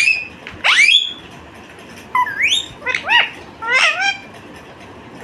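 Indian ringneck parakeet chirping: about five loud calls in quick succession, each sweeping up or bending in pitch. The calls stop for the last second.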